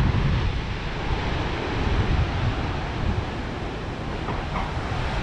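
Sea surf washing along the shore under strong wind, with gusts buffeting the microphone in an uneven low rumble.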